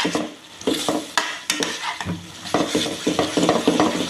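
A metal utensil stirring and scraping thick tomato sauce with carrot strips around a wok, mixing in brown sugar, with the sauce simmering and sizzling underneath. The irregular scraping strokes ease off briefly about half a second in, then pick up again.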